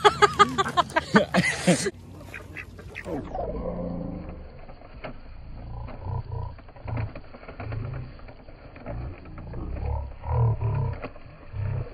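A flock of ducks quacking loudly for about two seconds. The sound then turns abruptly duller and quieter, with lower, muffled calls and light ticks.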